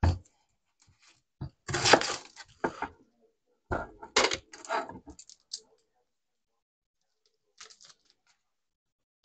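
Kitchen handling sounds: irregular clinks and knocks of utensils and dishes in short clusters, loudest about two seconds in and only a few faint taps near the end.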